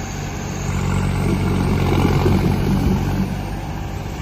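Tractor diesel engine running steadily, growing louder for a couple of seconds midway and then easing a little.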